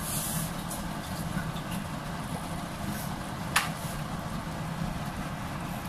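Sweet and sour sauce with vegetables simmering in a frying pan on a gas stove, a steady sizzling hiss with a low hum under it. There is a sharp tick about three and a half seconds in.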